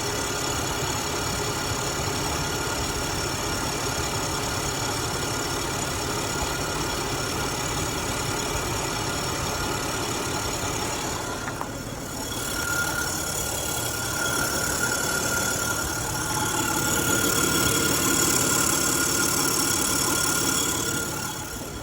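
Acura MDX engine idling with the air conditioning on, carrying the weird noise that was traced to a bad drive belt. A brief dip comes about halfway through, after which a high steady whine grows stronger.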